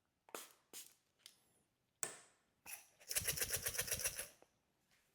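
A few short spritzes of water from a mister onto whole coffee beans (RDT), then a rapid rattling, about ten a second, for over a second, which is the loudest sound.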